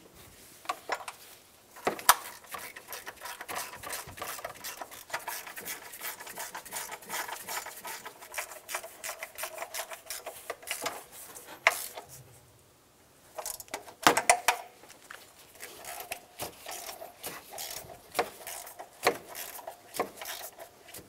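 Hand ratchet clicking rapidly as the thermostat housing cover nuts are run down and snugged, in several spells with a few sharper knocks in between.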